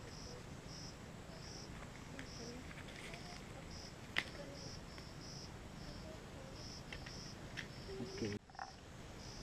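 Faint insect chirping: short high chirps repeating in a steady rhythm, roughly one to two a second. A single sharp click a little past four seconds in.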